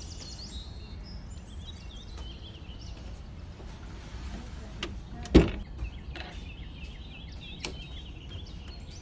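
Small birds chirping again and again over a steady low background rumble, with one loud thump about five seconds in and a few light clicks around it.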